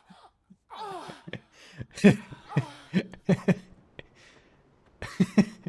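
A person coughing in short, sharp bursts: a fit of about five coughs, then two more near the end.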